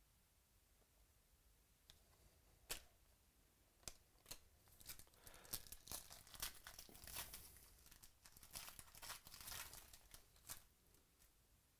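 Foil wrapper of a 2017 Panini Illusions football card pack being torn open and crinkled by hand: a few separate sharp crackles, then several seconds of dense, faint crinkling and tearing.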